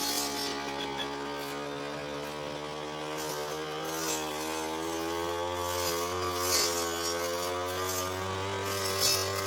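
Petrol brush cutter engine running steadily at high speed while cutting tall, thick grass, its pitch dipping briefly near the middle and again near the end as the blade takes a load.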